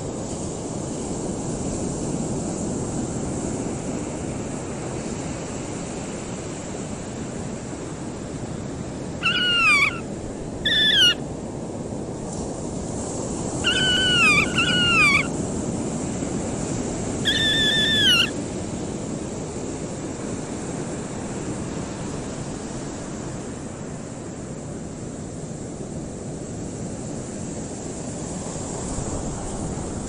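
Horned grebe giving about five short, clear whistled calls, some sliding down in pitch and some wavering, spread over several seconds in the middle. Steady wind and choppy water run underneath.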